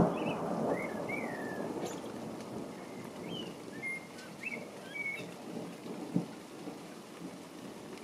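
A rumble of thunder fading away over the first few seconds, with rain falling throughout. Short bird chirps come and go during the first half, and there is a single sharp tap about six seconds in.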